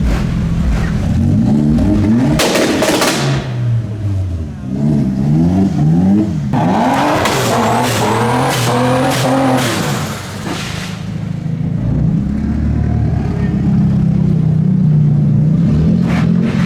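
Car engines revving hard again and again, the pitch rising and falling with each blip, with a harsher, noisier stretch in the middle.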